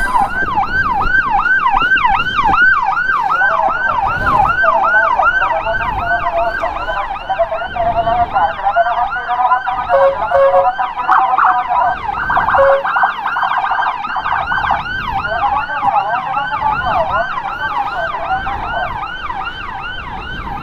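Electronic emergency siren sounding a fast yelp, about three to four rising-and-falling sweeps a second without a break.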